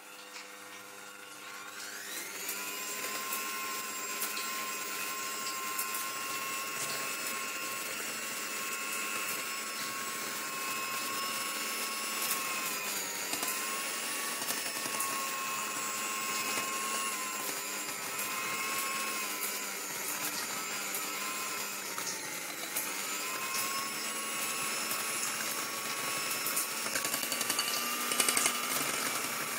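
Electric hand mixer running steadily, its beaters whisking cake batter in a glass bowl. The motor whine comes up to speed about two seconds in, and its pitch dips briefly twice.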